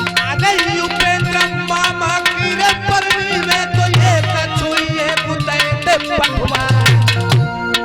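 Live North Indian folk music: hand drums beat rapidly under steady held drone notes, with a wavering, bending melody line over them that fades out near the end.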